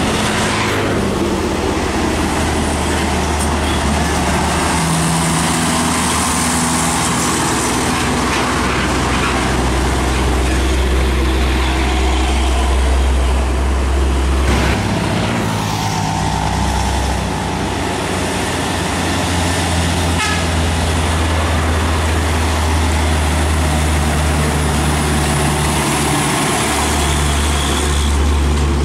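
Heavy trucks and other traffic passing on a busy highway: diesel engines running with a steady low drone under tyre and road noise.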